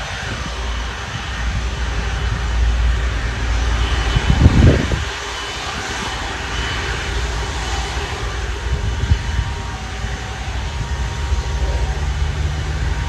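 Airbus A330-300's Rolls-Royce Trent 700 jet engines running at taxi power, a steady low rumble with a faint high whine. A brief louder rumble comes about four and a half seconds in.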